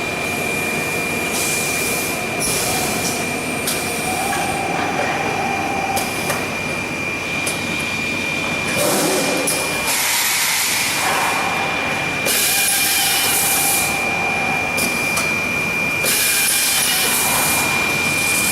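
Profile machining centre running an automatic cycle, fastening reinforcements and drilling frame profiles: a steady high whine throughout, with repeated bursts of hissing, drilling noise lasting a second or two each and a few stretches of a lower motor tone.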